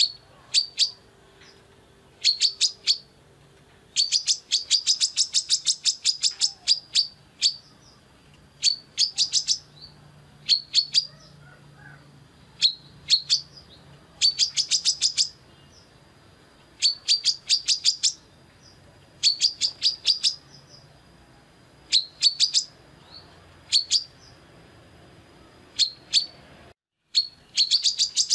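Female brown-throated sunbird (kolibri kelapa) calling: rapid strings of sharp, high chirps in bursts of half a second to a second and a half, repeated every second or two.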